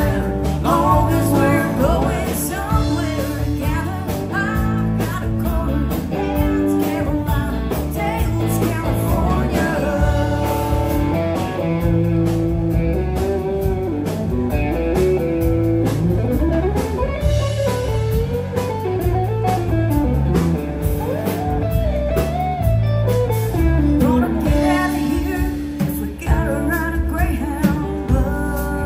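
Live band music with guitar and a singer, in a bluesy style, with a steady heavy bass and long bending notes through the middle.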